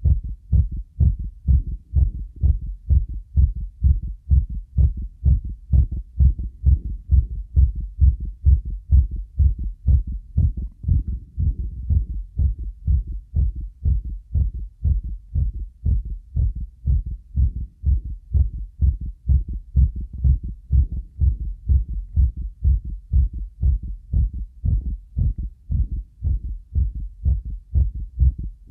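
Heartbeat recording, edited to sound three-dimensional: a steady, regular rhythm of low, dull beats.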